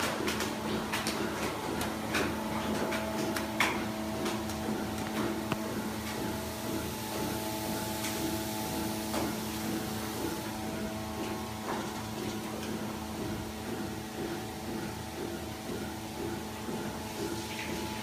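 Steady machine hum with several fixed tones, under a faint hiss of spraying water mist. A few sharp knocks and clatters fall in the first four seconds, the loudest about three and a half seconds in.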